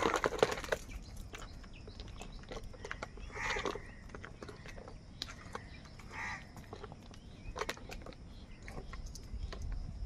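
House crows at a feeding tub: a burst of wing flapping and scuffling at the start, a couple of short caws about three and a half and six seconds in, and scattered clicks and taps of beaks pecking throughout.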